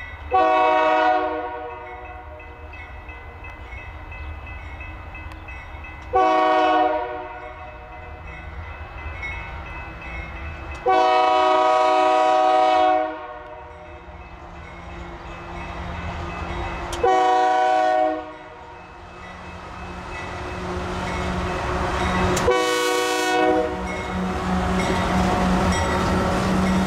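Union Pacific freight locomotive sounding its multi-note air horn for the grade crossing: five blasts, the third about two seconds long and the others about a second each. Between the blasts the diesel engine's rumble grows, and over the last several seconds the locomotive passes close, engine and wheels loud.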